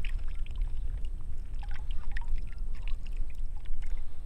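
Water pouring and dripping from a landing net as it is lifted out of the canal, with faint splashes, over a steady low rumble of wind on the microphone.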